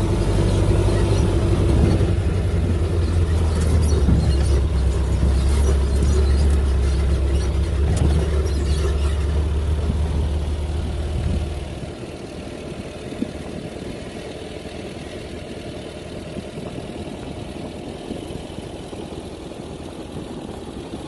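Vehicle engine running with a low, steady rumble as it drives slowly along a rough dirt track. About halfway through the engine sound drops away abruptly, leaving a quieter steady hiss.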